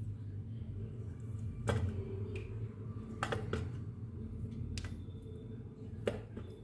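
A knife cutting potatoes into small pieces: a few scattered sharp knocks of the blade, over a low steady hum.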